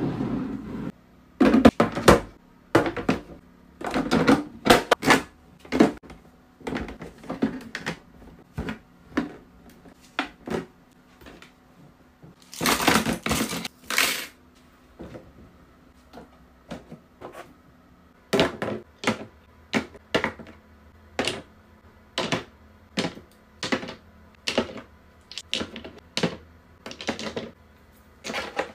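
Small plastic and glass cosmetic items clicking and knocking as they are set down one by one into plastic drawers and organiser bins, with a longer rustling clatter about halfway through. A plastic drawer slides open at the start.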